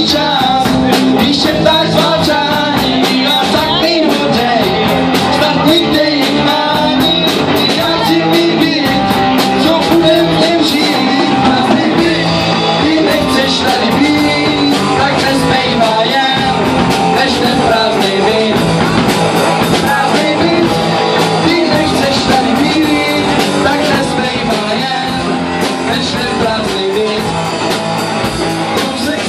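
Live rock band playing: electric guitar, bass guitar and drum kit with a steady beat and cymbals, with a sung vocal over it.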